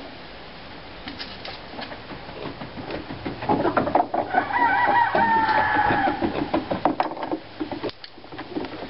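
A loud animal call, pitched and held for about two seconds from about three and a half seconds in, its pitch falling slightly at the end. Then a couple of sharp knocks.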